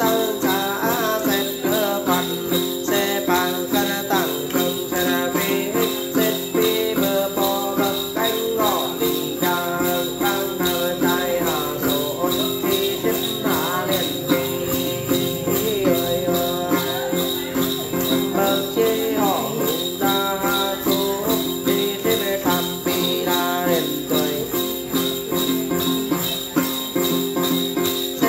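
Then ritual singing: a male voice chanting a long melodic line over a cluster of small bells (xóc nhạc) shaken in a steady, even rhythm, with the plucked đàn tính lute underneath.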